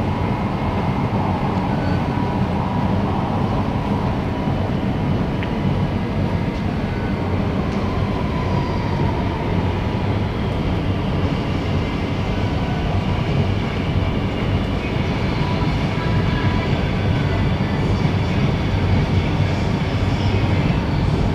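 Singapore MRT Circle Line train running through the tunnel and pulling into the station behind platform screen doors. It is a steady rumble that grows a little louder toward the end, with a faint high wheel squeal joining in the second half.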